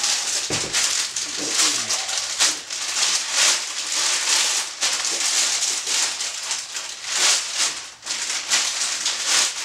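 Clear plastic packaging crinkling and rustling as the plastic-wrapped tripod is lifted and turned, with a low thump about half a second in.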